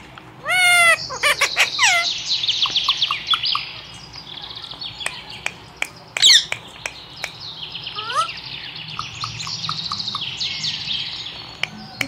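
Indian ringneck parakeet calling: a loud squawk about half a second in, rising chirps, and a sharp falling call about six seconds in, over a continuous rapid high twittering. A few sharp clicks in the middle.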